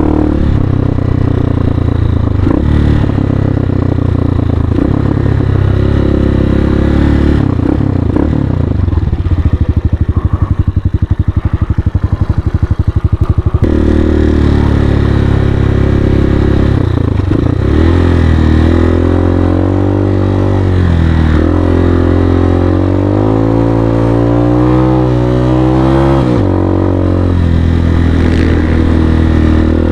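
Single-cylinder engine of a Hawk 250 dual-sport dirt bike running under way off-road, its revs rising and falling repeatedly with the throttle. For a few seconds in the middle the engine sound turns to a rapid, even pulsing.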